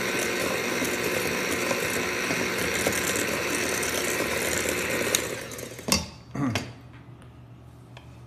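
Electric hand mixer running with its beaters whisking eggs and sugar in a stainless steel bowl, beating air into the mixture. It switches off about five seconds in, followed by two short knocks.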